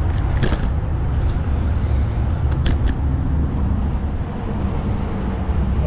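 Steady low rumble of wind buffeting the microphone and bicycle tyres rolling on a paved path while riding, with a few sharp clicks about half a second in and again near three seconds.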